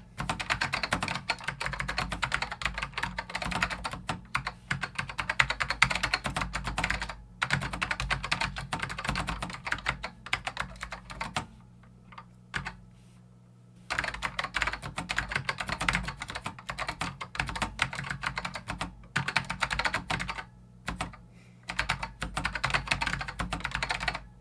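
Fast typing on a BigKeys LX keyboard with Alps SKBM White switches and large 1-inch keycaps. The keystrokes come in long runs of rapid clicks, broken by a few short pauses. The switches are ones the owner calls a little scratchy and prone to binding.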